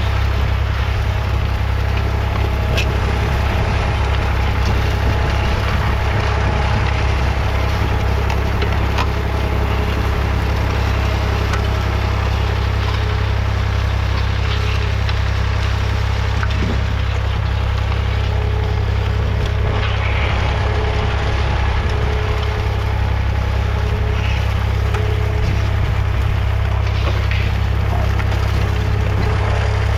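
1966 David Brown 880 Selectamatic's 2.7-litre three-cylinder diesel engine running steadily, pulling a two-furrow mounted plough.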